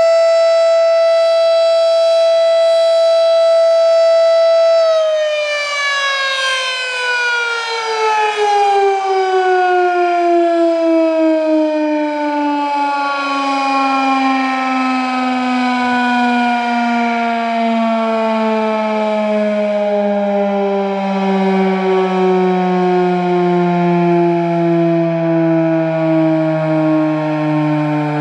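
Federal Signal Model 7 mechanical siren sounding a steady alert tone. About five seconds in, the tone starts to fall and keeps sliding slowly down in pitch as the siren winds down at the end of an alert.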